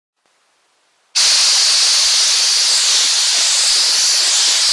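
A steady blast of compressed air from an air compressor's blow gun: a loud, even hiss that starts abruptly about a second in and cuts off sharply three and a half seconds later.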